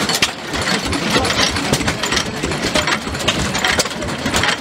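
Several vintage stationary engines running at once, their exhaust beats and knocks overlapping into an irregular chugging.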